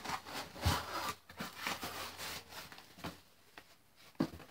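Cardboard box being opened by hand: irregular scraping and rubbing of cardboard for about three seconds, then quieter with a few light knocks.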